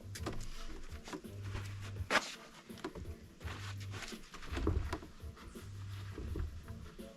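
Background music with a repeating low bass line, under scattered clicks and knocks.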